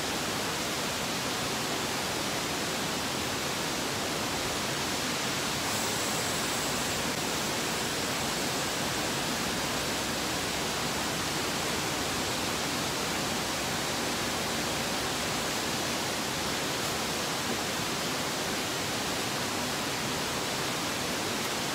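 Steady, even rushing noise at a constant level, with no breaks or distinct impacts.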